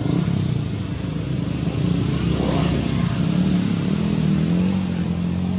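A motor vehicle engine running steadily, its low hum drifting in pitch and rising slightly near the end.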